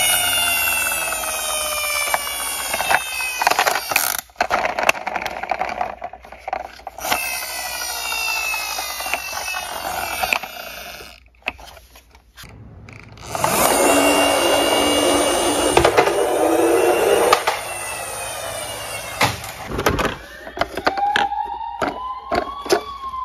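Electronic toy emergency-vehicle sirens, repeated falling wails with many overtones, mixed with the clack and knock of plastic toy cars being handled in a cardboard box. Near the end a single police-style siren wail rises and falls.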